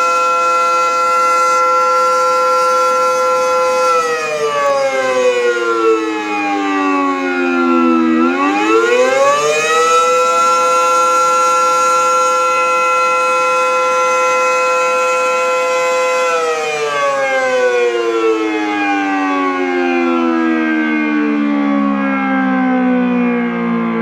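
Electromechanical air raid siren sounding several tones at once: it holds a steady note, drops in pitch about four seconds in, winds back up to the same note about eight seconds in and holds it, then winds down slowly from about two-thirds of the way through.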